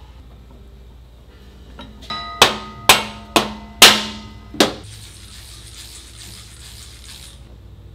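Sharp metal-on-metal clanks, each with a short ring, six in quick succession over about two and a half seconds, as a motorcycle rear wheel is handled into the swingarm; then a soft hiss for a couple of seconds.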